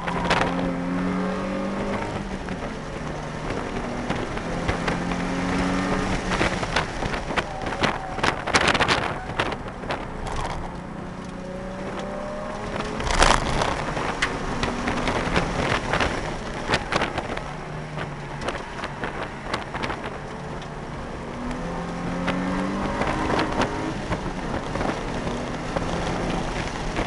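Nissan 350Z's 3.5-litre V6 heard from inside the cabin under hard driving, its pitch climbing again and again and dropping back between pulls. Sharp thumps and rattles come throughout, the loudest about halfway through.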